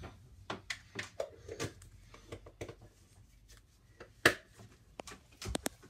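Faint clicks and rustles of small objects being handled at a desk, with one sharper click about four seconds in.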